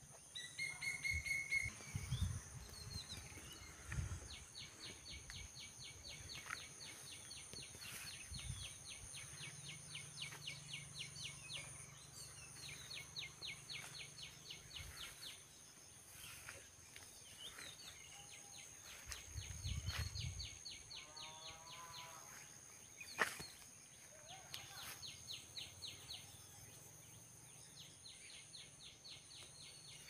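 Rural outdoor ambience: long runs of fast, evenly repeated high chirping, over a steady thin high whine, with a few low rumbles and one sharp click about two-thirds of the way through.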